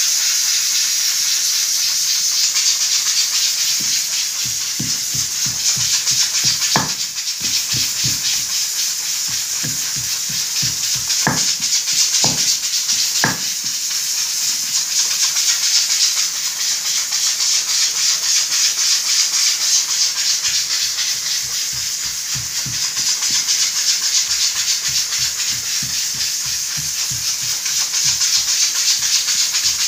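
Wooden pestle pounding garlic cloves and green chillies in a stone mortar: dull thumps about two or three a second, with a few sharper knocks near the middle, over a steady hiss.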